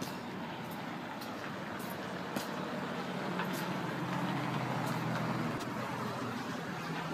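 Street traffic, with a motor vehicle's engine hum swelling as it passes through the middle and then easing off. Faint clicks are heard a few times.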